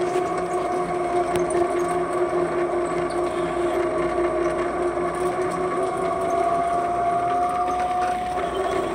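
Electric motorized shopping cart driving along, its drive motor giving a steady whine made of several held tones. One higher tone in the whine grows stronger about six seconds in and drops away just after eight seconds.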